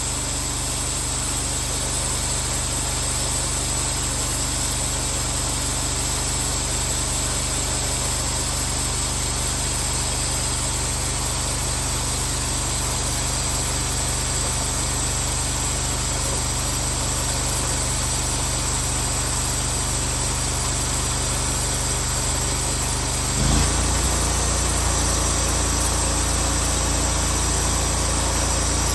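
Engine of a portable bandsaw mill running steadily; about three-quarters of the way through, its note shifts abruptly to a different steady pitch.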